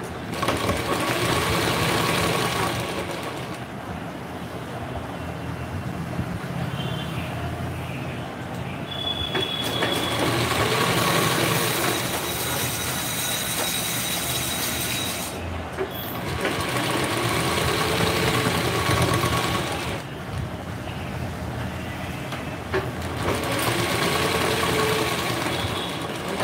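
Industrial sewing machine running in spurts. Four times its motor speeds up and slows down again, several seconds apart, with a lower steady hum between the runs.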